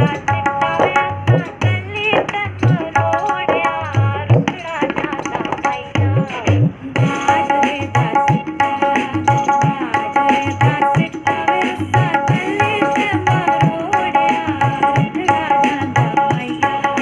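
Tabla played in a steady rhythmic pattern over the recorded song's music: the bayan's deep bass strokes rise in pitch as the palm presses the head, and the dayan gives ringing, pitched strokes.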